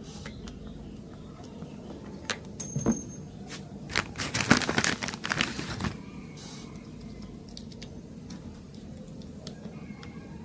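Hand work on a suitcase wheel assembly: scattered clicks and knocks of parts being handled, a sharp knock with a brief high squeak about two and a half seconds in, then about two seconds of dense clattering and crinkling.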